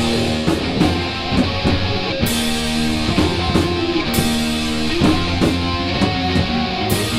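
Live heavy-metal band playing an instrumental passage: electric guitars and bass holding heavy chords over drums, with cymbal crashes roughly every two seconds.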